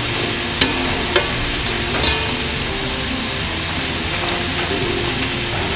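Potato fries deep-frying in hot oil over a high flame: a steady, dense sizzle. A metal spatula stirs them, giving a few sharp clicks against the pot in the first two seconds.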